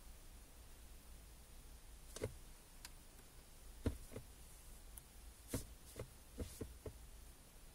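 About ten light, irregular clicks and taps as the touchscreen of an Android car head unit is operated, over a faint steady low hum.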